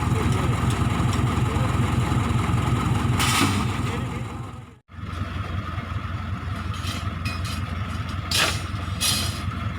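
Case 580K backhoe's diesel engine running steadily with a low, even rumble, a few short hissing bursts over it. The sound drops out for an instant about halfway through, then the engine carries on.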